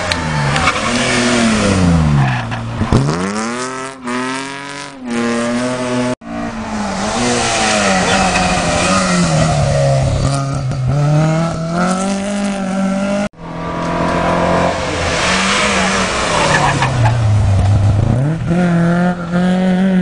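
Historic rally cars, a Ford Escort Mk2 among them, racing past one after another at full throttle. Engine pitch climbs and drops again and again through the gear changes. Tyres squeal as a car slides through a corner near the end.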